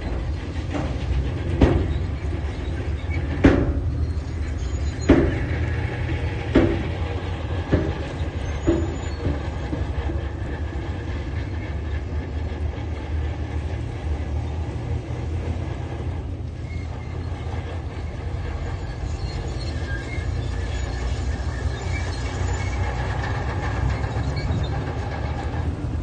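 Heavy diesel earthmoving machine running with a steady low drone, with a string of sharp metal clanks about every second and a half during the first nine seconds.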